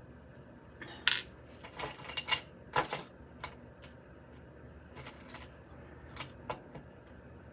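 Small metal jewelry pieces clinking and rattling while being handled: a cluster of light clicks and jingles from about a second in, then a few scattered clinks later.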